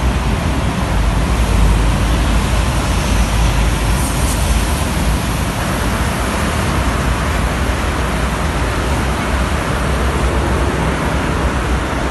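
Steady roadway traffic of trucks, a bus and cars passing on a wet multi-lane toll road: continuous tyre hiss over a deep engine rumble.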